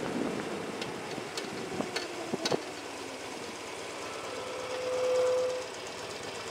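Motorcycle riding along a road: running engine and passing-air noise, with a few sharp clicks in the first half. A steady mid-pitched tone sounds for about a second near the end and is the loudest sound.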